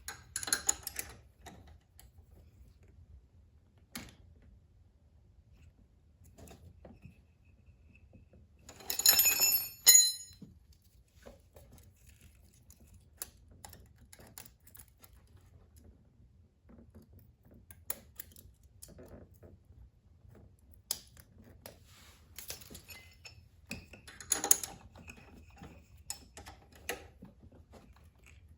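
Metal hand tools clicking and clinking on a small engine's valve train as the valve lash is set with a wrench and feeler gauge. The light taps come at scattered moments, with a louder ringing metal jangle about nine seconds in and another cluster around twenty-four seconds in.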